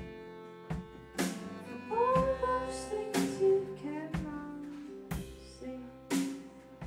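Live band music: a strummed acoustic guitar and double bass, with sharp drum hits about once a second and held melody notes that slide upward about two seconds in.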